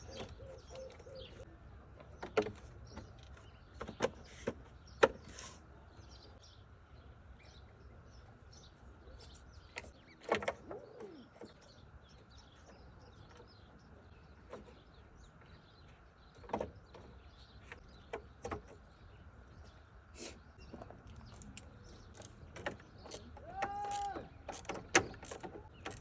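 Scattered sharp clicks and knocks of car parts and hand tools being handled during reassembly, about a dozen spread out, over a faint steady high hum. A short squeak-like pitched sound comes near the end.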